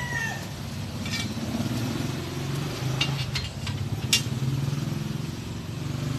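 Steady low machine hum that swells slightly at times, with a few short sharp clicks, the loudest about four seconds in.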